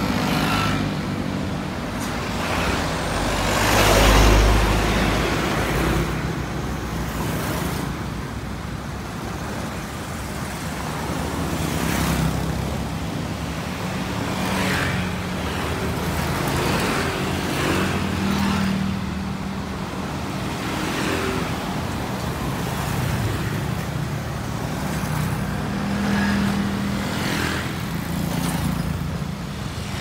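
Road traffic passing close by: a stream of motor scooters, cars and trucks, each going by in its own swell of engine and tyre noise. A heavy truck makes the loudest, deepest pass about four seconds in.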